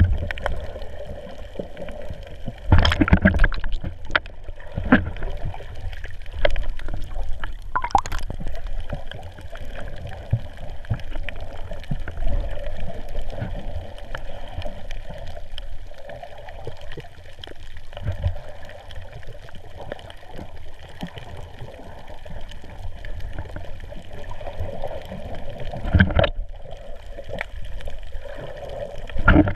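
Muffled water gurgling and sloshing picked up underwater through an action camera's waterproof housing, with irregular knocks and thumps as the camera is moved about.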